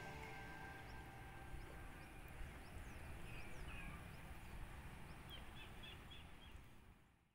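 Faint outdoor ambience with a few short bird chirps, including a quick run of five chirps about five seconds in. It fades out to silence near the end.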